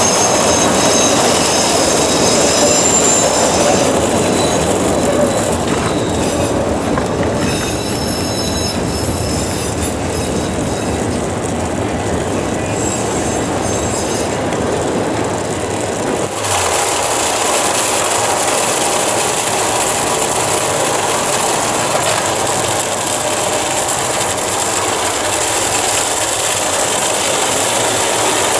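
CTA 'L' train running along the elevated tracks, its steel wheels squealing on the rails with several high, steady tones. About 16 s in the sound changes abruptly to a steadier rushing noise.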